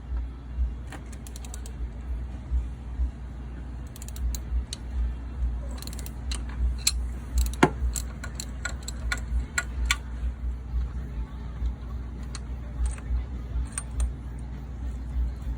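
Metal hand tools clicking and clinking irregularly against engine parts while the timing chain tensioner is being taken off. The clicks come in scattered clusters, busiest through the middle, over a steady low rumble.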